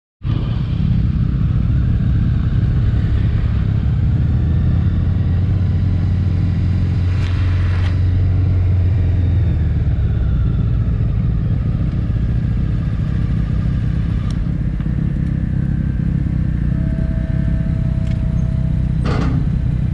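Honda CB-1 inline-four motorcycle engine running under way, with wind rushing over the microphone. The engine's low drone eases off about halfway through as the bike slows.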